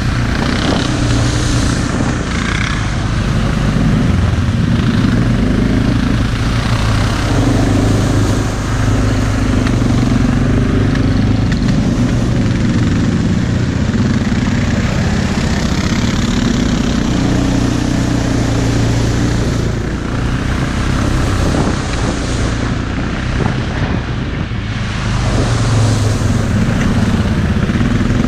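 Suzuki KingQuad 700 ATV's single-cylinder engine running under way, its note rising and falling as the throttle opens and eases off, with a couple of brief let-offs in the second half.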